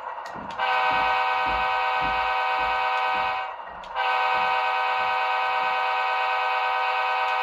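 Diesel locomotive air horn sample played by the Walthers DCC sound decoder in an HO scale CSX Dash 8-40B model, through the model's speaker. It sounds two long, steady blasts with a short gap between them, the second blast the longer.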